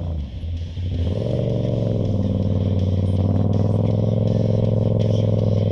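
Motorcycle engine, the rider's Yamaha MT-07 parallel twin, running under the rider as the bike rides along. Its note rises a little about a second in, then holds steady.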